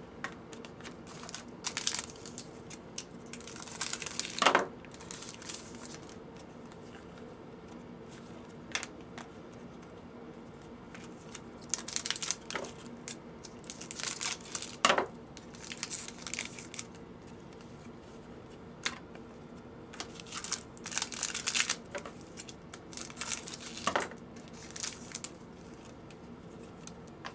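Foil trading-card pack wrappers crinkling and being cut and torn open with scissors, in scattered bursts of crinkling and snipping, over a faint steady hum.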